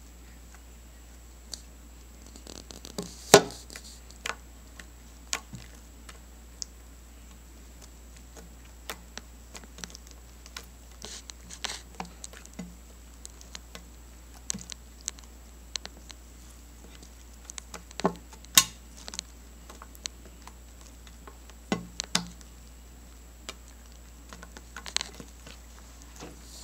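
Homemade glue-and-laundry-detergent slime being kneaded and pressed by hand on a glass tabletop: irregular small sticky clicks and pops, with a sharper knock about three seconds in and another near eighteen seconds.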